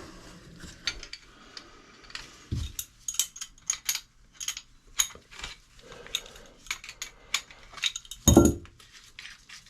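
Irregular light clinks and taps of hard objects being handled, with one heavier knock about eight seconds in.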